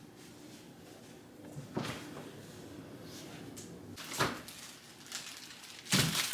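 Kitchen handling noises: a few separate knocks and clatters, about two and four seconds in, and the loudest near the end, like cupboard doors and items being moved about while gathering things for juicing.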